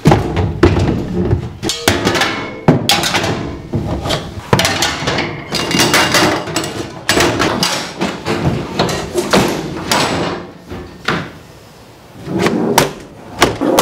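Tools and equipment being loaded into a pickup truck bed: a steel wheelbarrow, rake and long-handled tools clunking and clattering against the ribbed bed liner and each other in a rapid series of knocks and thuds. The knocking dies down briefly near the end, then a last flurry of knocks follows.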